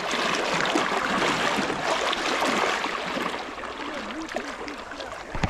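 Steady rushing of flowing water, easing off somewhat in the second half, with a short low thump near the end.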